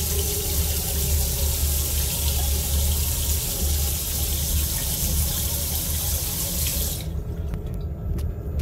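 Water from a push-button self-closing tap running into a small stainless steel basin, then shutting off by itself abruptly about seven seconds in. A steady low rumble continues underneath.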